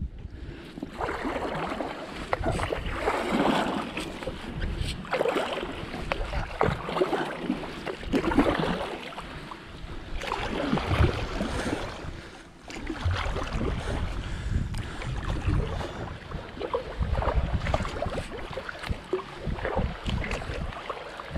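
Kayak paddle strokes: a double-bladed paddle dipping and pulling through the water on alternate sides every second or two, with water splashing and running along the hull of a Swell Watercraft Scupper 14 sit-on-top kayak. Wind buffets the microphone underneath.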